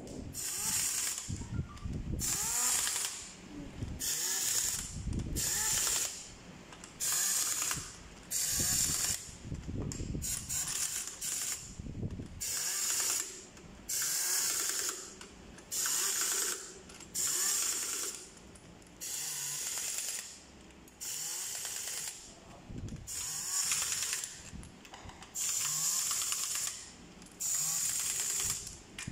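Pneumatic impact wrench running timing-cover bolts in on an engine, in short bursts of under a second each, about one every second and a half, with a loud air hiss.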